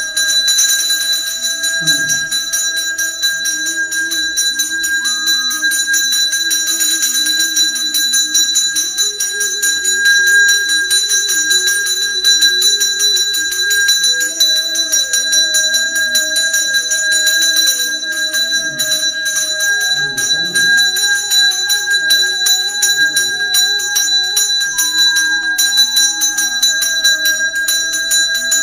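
Brass puja bell rung rapidly and continuously during an aarti lamp offering, a steady high ringing made of quick repeated strokes. A soft wandering melody runs underneath.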